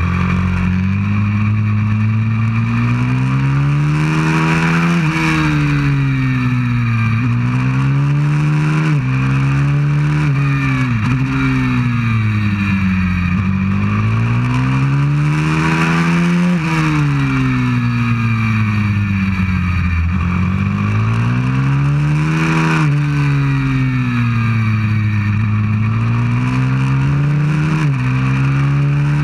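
190cc single-cylinder four-stroke pit bike engine at racing speed, heard from a camera on the bike. The revs climb and fall again and again as it accelerates out of corners and slows into them, with quick dips at gear changes. Wind rushes over the microphone throughout.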